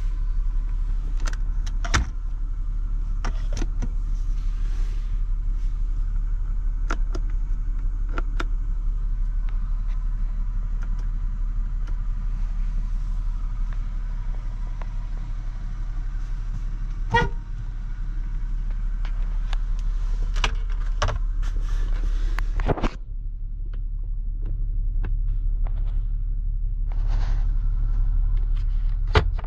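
1994 Lexus ES300 (V6) on the move: a steady low rumble of engine and road, with scattered light clicks and rattles and a sharper knock about seventeen seconds in and again near twenty-three seconds.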